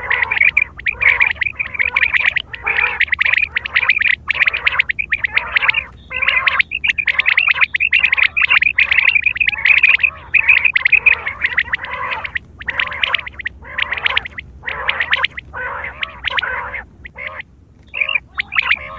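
Common quail calling over and over: short bursts of rapid, high notes with brief pauses between them.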